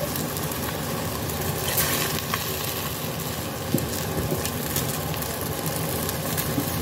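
Chicken pieces and vegetables sizzling in oil and a little added water in a stainless steel pot over a gas flame: a steady sizzle with occasional small crackles.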